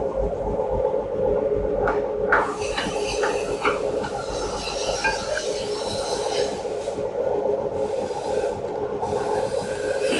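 Metal rubbing and scraping with a few light clinks as a piston is handled and worked into a cylinder bore of a Hyundai D6DA diesel engine block, over a steady background hum. The clinks cluster about two to four seconds in.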